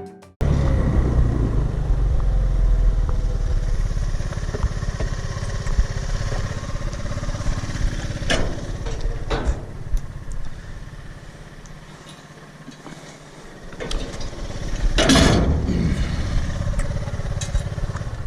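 A vehicle running, a steady low rumble that eases off and quietens about twelve seconds in. There are a couple of sharp knocks around eight and nine seconds in, and a loud short burst of noise about fifteen seconds in.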